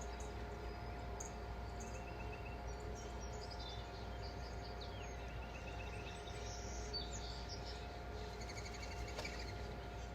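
Faint bird chirps and short trills over a steady low hum.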